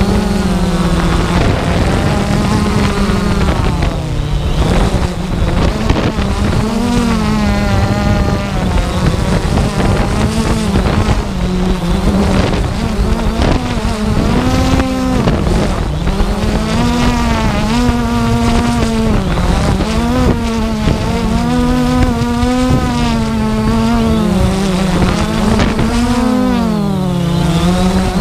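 Multirotor drone's electric motors and propellers buzzing loudly close to the microphone, the pitch rising and falling continuously as the drone holds its position and slowly descends.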